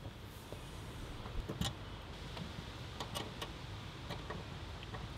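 Allen key clicking in the brass service valve of a ductless mini-split outdoor unit as it is turned to open the valve: a few faint, sharp metallic clicks over a low background.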